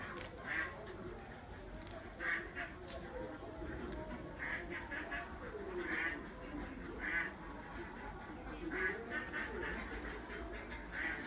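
Ducks quacking, short nasal calls every second or two.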